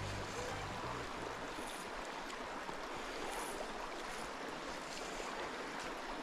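Small stream running over a shallow, stony riffle, a steady rush and ripple of water. Background music fades out in the first second.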